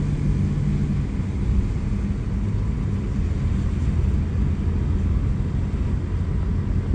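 Steady low rumble of a car on the move, engine and road noise with a faint hum at first.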